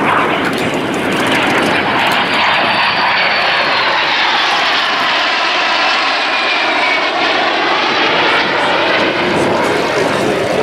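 Jet engines of a formation of vintage jet fighters (a MiG-15 and twin-boom de Havilland jets) passing in a flypast: a loud, steady rushing jet roar with a whooshing sweep in tone as the formation goes by.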